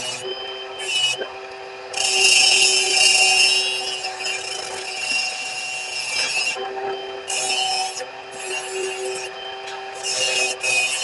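Electric grinder running with a steady hum while the steel edge of a hot-cut chisel is pressed against it in repeated passes. A harsh grinding hiss comes and goes several times, the longest pass lasting about four seconds.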